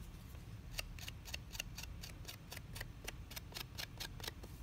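Edge of a plain metal rib scraping quickly back and forth over a damp clay coil pot, a faint run of short scraping strokes about five or six a second, smoothing the coils together and scraping down the scratch marks left by a serrated tool.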